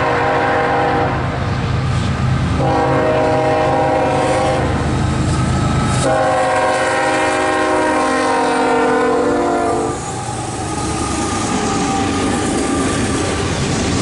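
Union Pacific GE Evolution-series locomotive sounding its Nathan K5HL five-chime air horn for a grade crossing: the end of one blast about a second in, a second blast of about two seconds, then a long final blast of about four seconds, over a steady diesel rumble. After the horn stops the locomotives pass close with the rushing noise of the train and wheels clacking over the rails.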